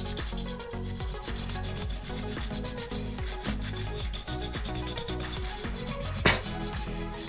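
A toothbrush wet with gasoline scrubbing corrosion off an LED bulb's circuit board, in quick back-and-forth bristle strokes. A single sharp knock comes about six seconds in.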